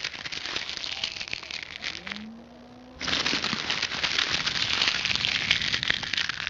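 Dense crackling rustle of leaves and branches, in two long stretches with a short break about two seconds in.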